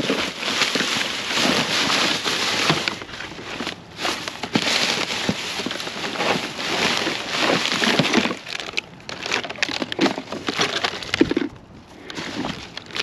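Plastic bags crinkling and rustling as gloved hands dig through a pile of trash, with short knocks and clatters of plastic containers being moved.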